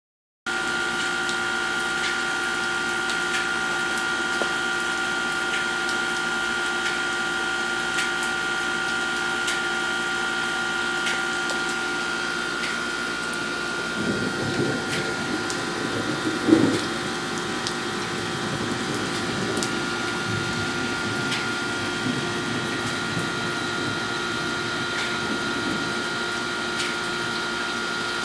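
Steady rain falling with scattered drips, over a few constant humming tones. About halfway through there is close rustling with one louder bump.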